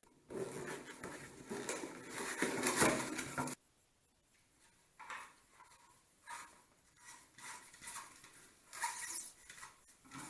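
Hard objects being handled: about three seconds of scraping and rattling, then a string of short knocks and clicks about a second apart.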